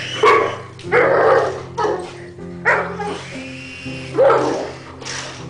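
A dog barking repeatedly, roughly once a second, with several sharp barks.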